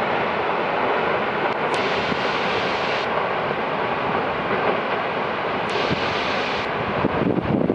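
Water from an overflowing dam discharging through an outlet in the dam wall as a massive jet and crashing into the gorge below: a loud, steady rush of water that turns choppier in the last second.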